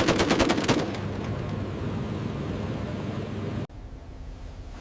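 A burst of rapid aircraft machine-gun fire, about ten rounds a second, stops under a second in. A steady rumble follows and cuts off abruptly about three and a half seconds in, leaving a quieter hum.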